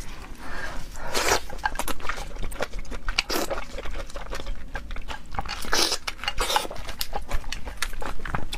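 Mantis shrimp shell being cracked apart by hand and bitten close to the microphone: a run of irregular wet crackling and crunching clicks, with louder crunches about a second in, a little after three seconds and near six seconds.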